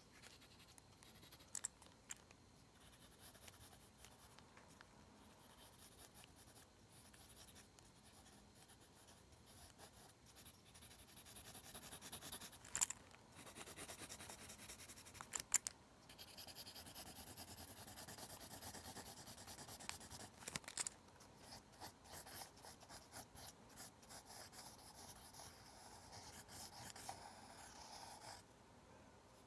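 Pencil scratching across lined notebook paper in short sketching strokes, faint throughout and busier in the second half, with two sharp clicks a few seconds apart near the middle.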